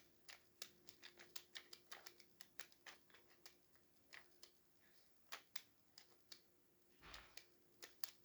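Faint plastic clicks and clacks from a Rubik's twisty puzzle being turned by hand, irregular at a few a second, with a longer scrape about seven seconds in.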